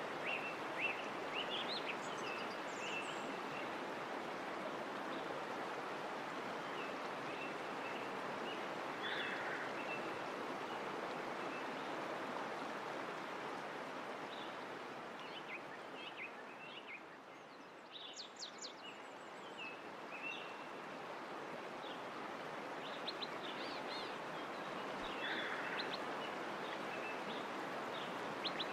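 Steady rushing of flowing water with small birds chirping over it throughout. A little past the middle the water sound dips for a moment while a few higher chirps sound, then it comes back up.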